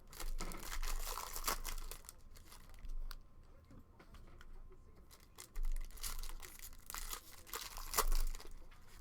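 Trading-card pack wrapper being torn open and its packaging crinkled and rustled by hand, in irregular bursts, the loudest about eight seconds in.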